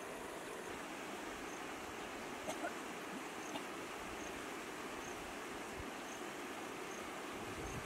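Steady outdoor hiss with a high insect chirp repeating a little faster than once a second, and a few light clicks about two and a half to three and a half seconds in.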